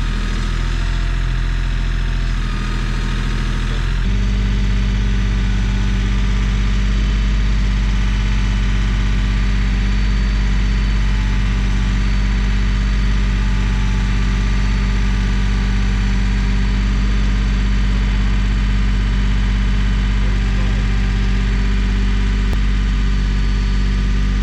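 Small gasoline engine running steadily, with an abrupt change in its tone about four seconds in.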